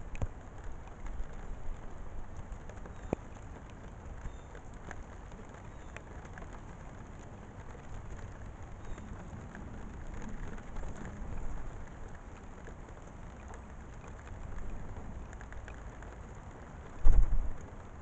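Steady rain falling, with scattered drops ticking on nearby surfaces and a low rumble underneath. A short, loud low thump near the end.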